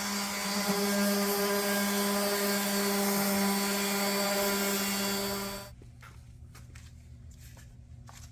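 A handheld power tool running at a steady pitch, a hum with a hissing rush, then switched off abruptly about two-thirds of the way in. A few faint handling clicks follow.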